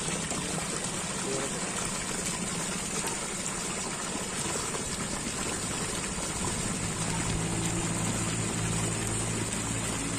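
Steady gush and splash of water pouring from a deep-well submersible pump's discharge pipe into a plastic drum and spilling over. A low hum joins about six seconds in.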